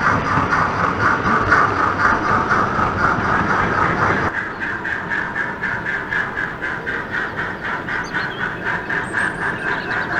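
Steam locomotive chuffing from the DCC sound decoder of a Hornby Britannia Pacific model, a steady beat of about four exhaust beats a second through the model's small speaker. About four seconds in the sound becomes softer and less hissy.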